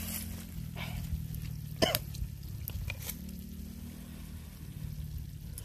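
A person eating: a few short mouth sounds, the clearest a brief one about two seconds in, over a steady low hum.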